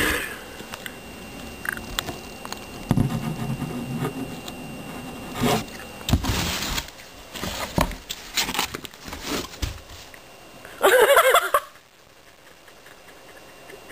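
A kitten scrabbling and kicking against a cardboard box, its paws and claws scraping and knocking on the cardboard in scattered bursts. A short burst of voice near the end.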